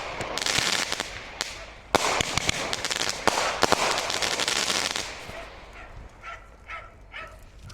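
Fireworks crackling and hissing with sharp pops for about five seconds, then dying away. Near the end come a few short, pitched calls.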